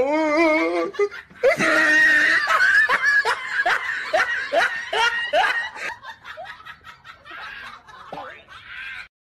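A person laughing: a wavering drawn-out voice, then a run of quick rhythmic 'ha-ha' pulses about three a second that trail off and cut off suddenly near the end.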